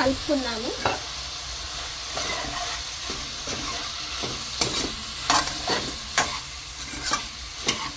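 Metal ladle stirring vegetables and soaked mung beans in a pressure-cooker pan, scraping and knocking against the pot several times, over the steady sizzle of the vegetables frying.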